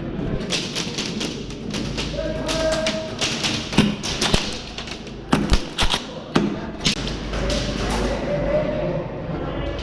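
Airsoft gunfire in close-quarters play: sharp shots and BB hits at irregular intervals, with a cluster of the loudest cracks between about four and seven seconds in. Short shouted calls from other players come through faintly.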